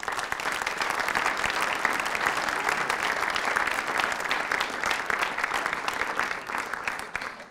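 Audience applauding: dense clapping that starts all at once and dies away near the end.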